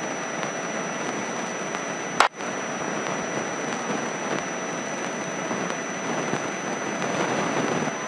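Steady rushing cabin noise of a light airplane in flight, with a faint steady high whine and a single sharp click about two seconds in.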